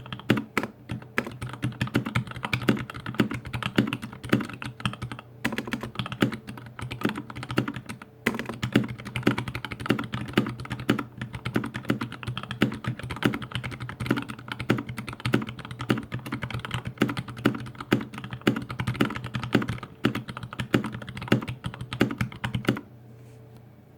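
Continuous rapid typing on a dampened GH60 60% mechanical keyboard fitted with Gateron Clear linear switches: a dense run of keystroke clacks with short breaks, stopping about a second before the end. A faint steady low hum remains after it stops.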